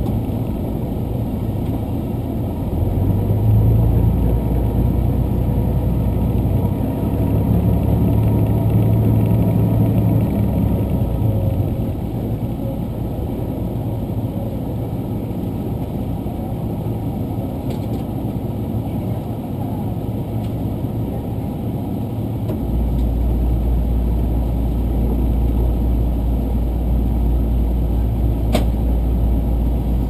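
Running noise inside a diesel express train: a steady low engine drone and rumble, swelling for several seconds early on, with a deeper hum setting in a little over twenty seconds in.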